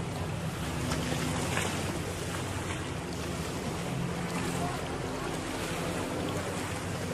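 A boat engine running steadily under wind buffeting the microphone and water washing around the hull.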